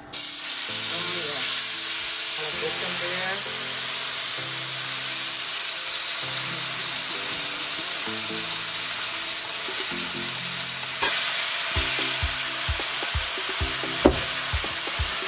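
Wet curry seasoning paste frying in very hot oil in a nonstick pan, a loud steady sizzle that starts the instant the paste goes in. From about twelve seconds in, a silicone spatula stirs it, knocking against the pan in a run of short thuds, one sharper near the end.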